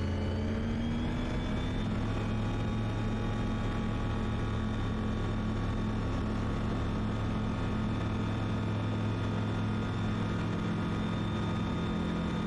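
Kitfox light aircraft's engine and propeller opened up to full takeoff power. The pitch climbs over the first couple of seconds as the engine winds up, then holds steady through the takeoff roll.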